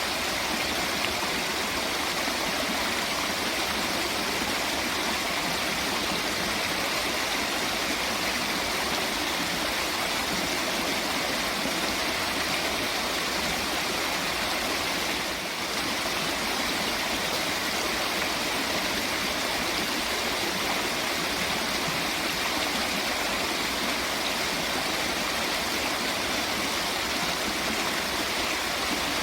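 Steady rushing of flowing water, an even, unbroken wash of sound that dips briefly about halfway through.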